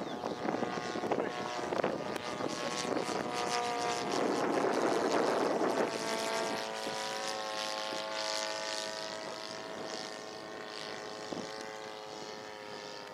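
Radio-controlled scale model NDN Firecracker flying past, its engine and propeller droning steadily. The sound is loudest about five seconds in, then fades and drops slightly in pitch as the plane draws away.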